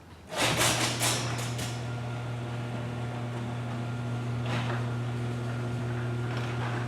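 Garage door opener starting up with a quick burst of clattering and rattling, then its motor running with a steady hum as the door panels travel along the tracks.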